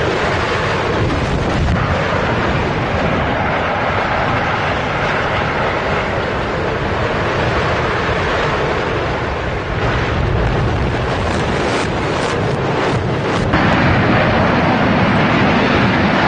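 Heavy, continuous rumbling roar of a demolition collapse, a felled industrial chimney and then an imploding building, mixed with wind buffeting the microphone, apparently played backwards. The noise shifts character about thirteen seconds in.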